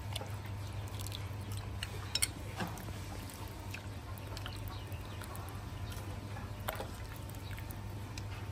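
A few faint, scattered clicks and light knocks of kitchenware being handled, over a steady low hum.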